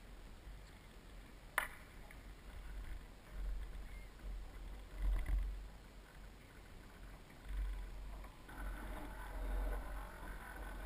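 Water lapping and slapping against the hull of a Soling 1 Metre radio-controlled model sailboat under sail, over an uneven low rumble that swells and fades every second or two. A single sharp click comes about a second and a half in.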